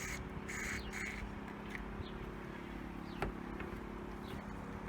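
Short hisses of a WD-40 aerosol can being sprayed into the engine's spark plug holes, two bursts in about the first second. Birds chirp in short falling notes after that, over a steady low hum.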